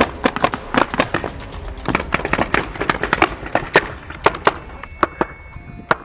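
Paintball markers firing: rapid, irregular sharp pops, some louder and some fainter, thinning out a little near the end.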